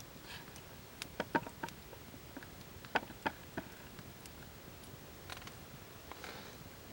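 Wood campfire crackling: sharp pops and snaps, a quick run of four about a second in and three more about three seconds in, with soft hissing from the burning wood in between.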